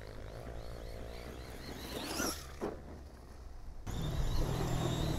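Remo Hobby EVO-R 1/8 brushless RC truggy running off-road on 3S: its motor whine rises sharply about two seconds in, and near the end a steadier high whine with a low hum comes in.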